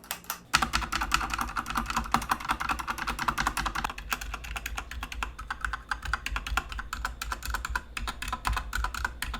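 Rapid typing on an AJAZZ K870T TKL mechanical keyboard with Huano Red linear switches and factory-lubed, plate-mounted stabilizers: a dense run of keystrokes starting about half a second in.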